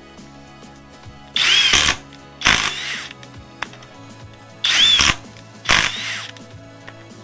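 Cordless FLEX 24V impact driver run in four short bursts, in two pairs. In the first burst of each pair the motor's whine rises and falls.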